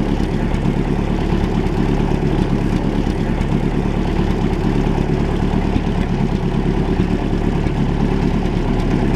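Inboard engine of an antique wooden runabout idling steadily at the dock, exhausting through a transom outlet that spits cooling water.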